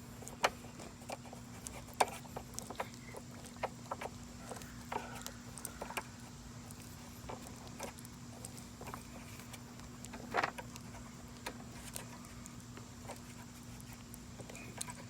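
Scattered light clicks and taps of a bolt and nut being fitted by hand on a push lawnmower's handle, with one slightly louder knock about ten seconds in, over a faint steady hum.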